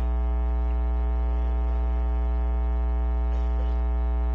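Steady electrical mains hum with a buzzy stack of overtones, carried through the church's sound or recording system and filling the pause between phrases of the sermon.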